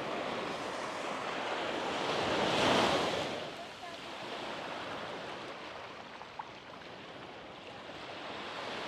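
Small sea waves breaking and washing on the beach, one wave swelling to a crash about two and a half seconds in and then hissing back down.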